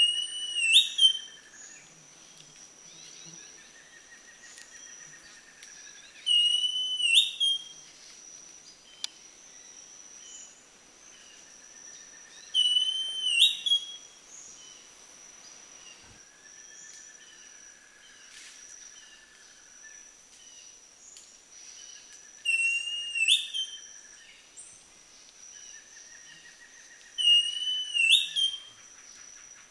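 Northern Schiffornis (Thrushlike Schiffornis) singing: five loud, slurred whistled phrases, each about a second long and ending in an upslur, spaced several seconds apart. A steady high whine and a fainter, low wavering note repeat underneath.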